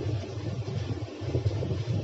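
Steady low background rumble, uneven in level.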